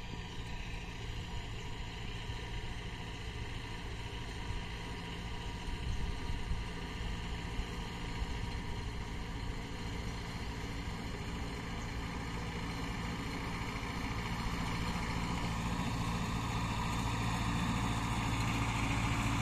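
Tractor engine running steadily, getting gradually louder over the last few seconds.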